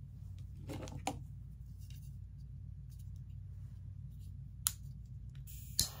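A few soft handling taps and clicks over a low steady hum, then near the end a sharp click and a steady hiss starting up: a torch lighter being lit.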